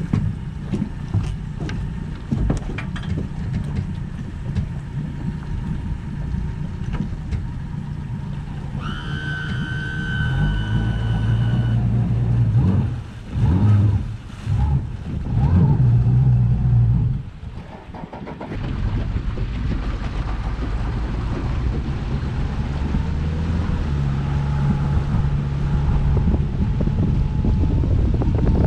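Wind buffeting the microphone, then a tiller-steered Mercury outboard motor starts about ten seconds in, runs unevenly for several seconds, dips briefly, and settles into a steady run as the boat gets under way, slowly growing louder. A high steady tone sounds for a few seconds just before the engine catches.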